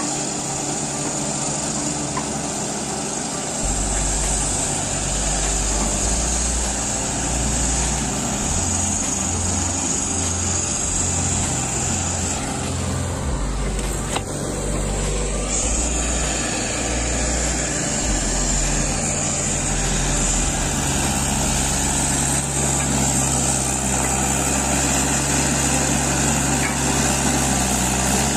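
Tractor diesel engine running, growing louder about four seconds in, its note shifting up and down in steps.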